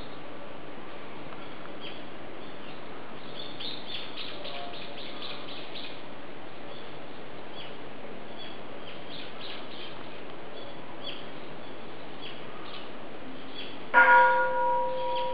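Birds chirping now and then over a steady background hiss. Near the end a temple bell is struck once, loudly, and rings on in a steady tone.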